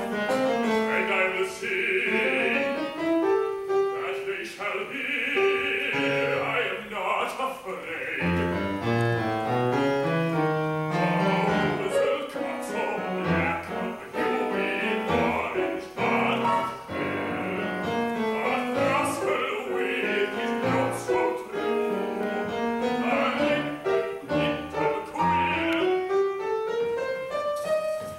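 Piano accompaniment from an opera playing a lively passage of quick rising and falling runs and chords, ending on a rising line.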